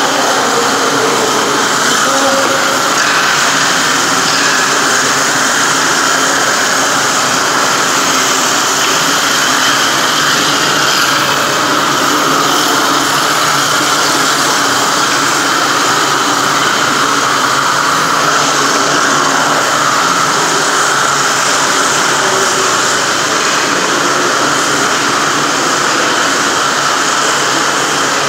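A motor-driven machine running loud and steady, with a hiss and a steady high whine.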